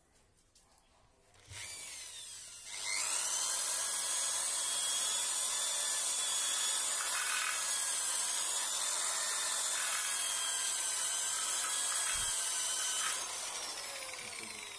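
Corded electric drill with an abrasive disc spinning up and scrubbing rust off a motorbike's spoke wheel rim: a whine that rises about a second and a half in, turns into a loud, steady whine with a scrubbing hiss as the disc bites the rim, then falls in pitch as the drill is released near the end.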